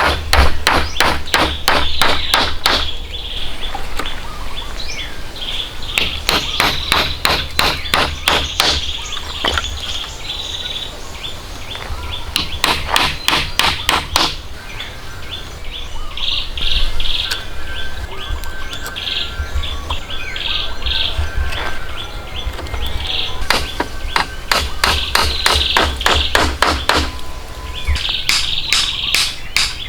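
Rapid, evenly spaced blows of a hand tool, about five a second, in runs of two to three seconds with pauses between, over birds chirping.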